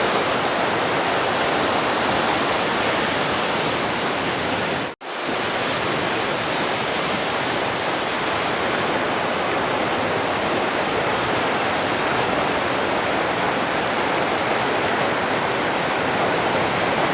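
River water rushing steadily through rapids, running high. The sound cuts out for an instant about five seconds in.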